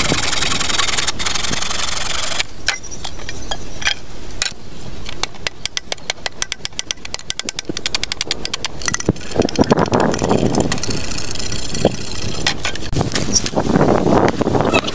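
Bamboo poles being cut by hand: a saw rasping through a pole at first, then a fast, even run of blade strokes on the bamboo, about seven a second, for several seconds.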